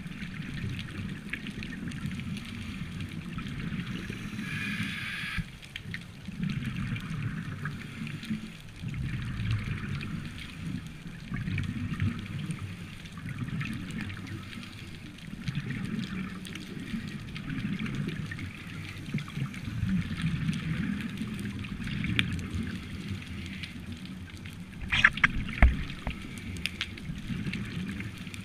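Scuba diver breathing through a regulator underwater, heard through a camera housing: exhaled bubbles gurgle in low rumbling bursts that come and go every few seconds, with a hiss between them. A few sharp clicks near the end.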